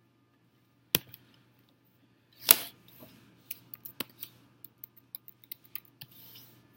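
Handling noise on a recording device held close to the microphone. A sharp click comes about a second in and a louder knock about a second and a half later, followed by a run of small irregular clicks and taps, over a faint steady hum.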